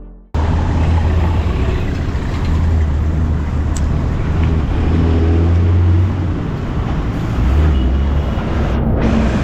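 Road vehicle noise: a steady rumble with a heavy low drone, cutting in abruptly just after the start.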